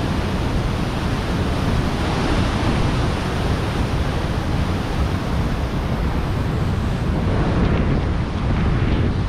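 Steady rushing roar of a nearby waterfall, mixed with wind buffeting the microphone.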